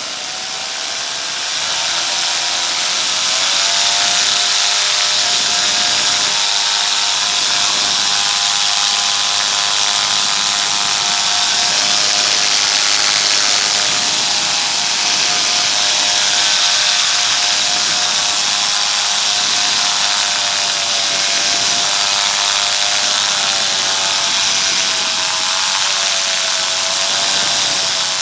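Paramotor engine running under power, its pitch rising over the first few seconds and then holding steady, with a slight dip near the end, over rushing wind noise.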